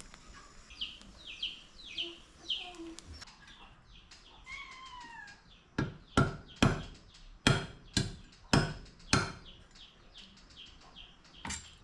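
A knife chopping on a cutting board: about seven heavy chops, roughly two a second, starting about six seconds in. Before them, a few short bird chirps.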